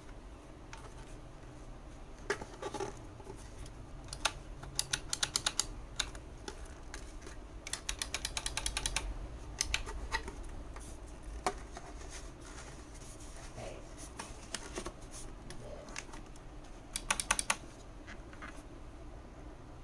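Hard plastic casing of a small electric blower being handled, giving several bursts of rapid clicking and rattling, with a faint low hum underneath.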